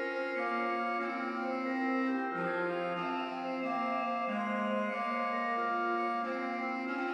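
Pipe organ playing a French baroque trio in passacaglia form: several voices in sustained, overlapping held notes, with the lower line stepping down partway through.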